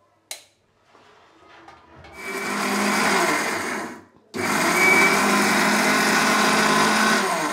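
Electric mixer grinder dry-grinding dried red chillies, garlic cloves and salt into chutney paste in a small steel jar. After a click it runs for about two seconds, stops briefly, then runs again for about three seconds.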